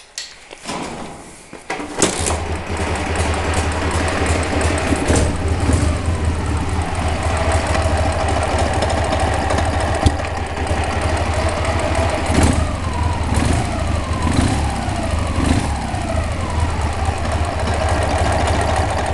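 Car engine starting about two seconds in, then idling, with an added knock or whirring noise over the idle that comes with the clutch pedal pressed, a clutch fault the owner cannot yet pin down.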